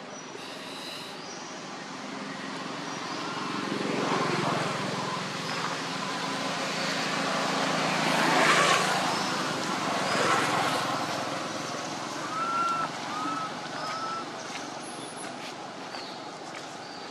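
A motor vehicle passing by: engine and road noise swell over several seconds, peak, then fade away. A few short high chirps come through near the end.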